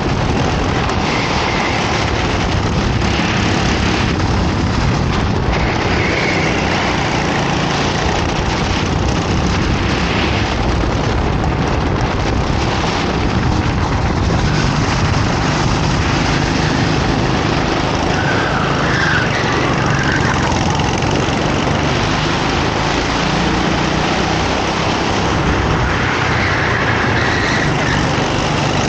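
Racing kart engine running at speed, its note rising and falling as the revs change.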